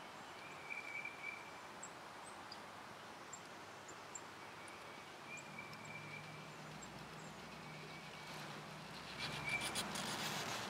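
Wild turkey gobblers strutting: a low drumming hum sets in about halfway through and runs for several seconds, with a short crackly rustle near the end. Faint small-bird chirps and an insect's thin buzz sit behind it.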